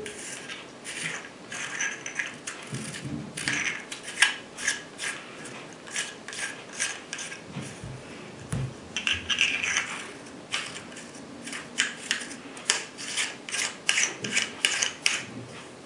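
Windage and elevation turret knobs on a Sightron SII rifle scope being turned by hand. They give runs of small, sharp detent clicks with short pauses, over a light rasping rub of fingers on the knob. Each click is a 1/8-MOA adjustment step.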